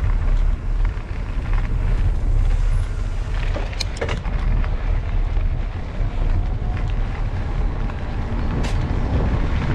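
Steady low rumble of wind on the microphone and tyres rolling on the towpath as a mountain bike rides along, with a few brief clicks or rattles about midway and again near the end.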